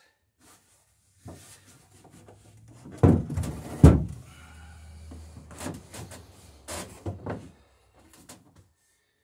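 Wooden knocks and bumps as a centerboard box is handled inside a wooden boat hull: two heavy thumps about three and four seconds in, then lighter taps and scrapes.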